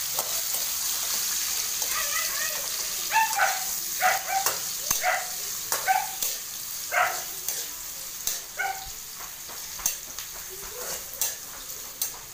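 Sliced onions sizzling in hot oil in a stainless steel wok, with the metal spatula clicking against the pan as they are stirred. From about two seconds in to past the middle, a dog barks in a run of short barks, louder than the frying.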